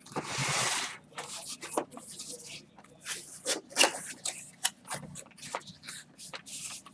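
Hard plastic PSA graded-card holders (slabs) clicking and clacking against each other as they are lifted out of a cardboard box and stacked, after a rustling scrape of about a second at the start.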